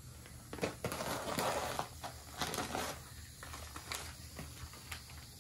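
Scissors cutting into the thin plastic wrap of a vacuum-sealed foam cushion: plastic crinkling with scattered small clicks and snips, busiest in the first two seconds.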